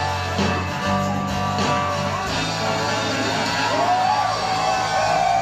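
Live band playing, with guitar to the fore over held bass notes, recorded from within the audience.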